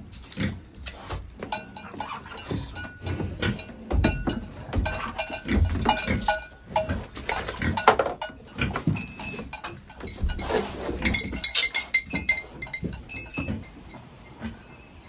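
Livestock calling in a barn, with many scattered clinks and knocks of a metal bucket and tether as a cow is handled and fed.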